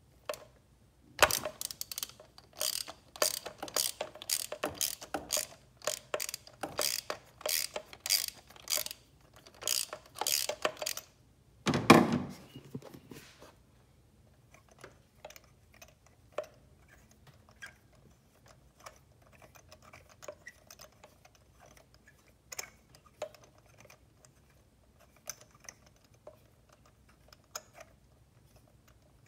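Ratchet wrench clicking in quick runs of strokes for about ten seconds while turning a spark plug. About twelve seconds in there is one louder clunk, then only scattered faint clicks.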